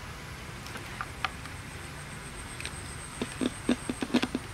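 Small loudspeaker driver giving a quick run of short, low pops and crackles near the end as analog multimeter test probes touch its terminals, after a few light clicks earlier.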